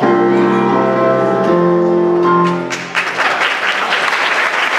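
Accompaniment music holding long sustained chords that change about a second and a half in; about three seconds in, an audience bursts into applause over it.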